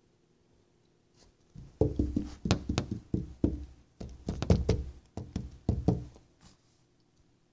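Rapid, irregular knocking and thumping as a dog gnaws and tugs at the end fitting of a garden hose on concrete. It starts about a second and a half in, pauses briefly midway and stops near the end.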